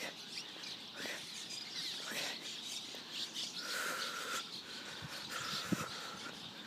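A large flock of sparrows chirping and calling over one another in a dense, unbroken chatter of short calls. A single short knock sounds near the end.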